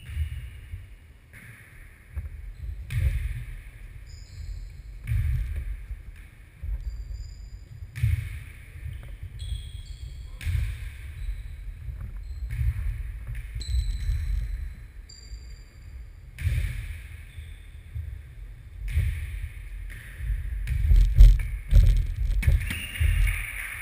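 Muffled rumble of play in a sports hall during a football-tennis (nohejbal) match, with irregular thuds of ball contacts and footsteps on the wooden floor. A cluster of heavier thuds comes near the end.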